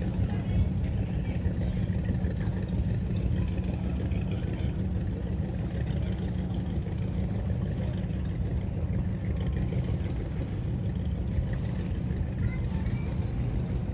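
Motorboat engine running steadily underway, a constant low drone.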